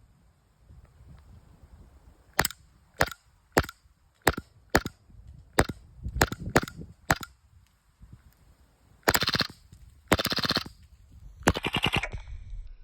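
Raven EU18 gas blowback airsoft pistol firing about nine single shots in semi-auto, then three short full-auto bursts of rapid cracks, each about half a second long.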